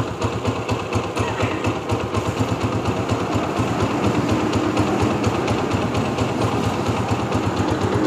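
Honda CG125's single-cylinder four-stroke engine running steadily at idle with an even rhythmic beat while its carburetor is adjusted. A new carburetor insulator means the intake is no longer drawing in air, so the engine holds its idle.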